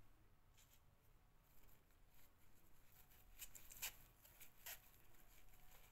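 Near silence with faint handling noise: soft rustles and a few light clicks of fabric flowers being fitted onto a foam head form, the clicks a little past halfway.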